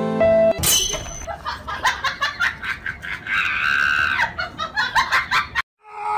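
A moment of soft music cuts off. Then a person laughs in quick bursts, with a high shriek in the middle, and the sound stops abruptly near the end.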